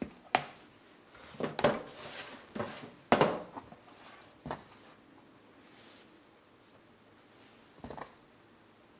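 Plastic scoop digging into whole wheat flour in a plastic container and knocking against its sides, with flour tipped into a mixing bowl: a cluster of short knocks and scrapes in the first few seconds, the loudest about three seconds in, and one more knock near the end.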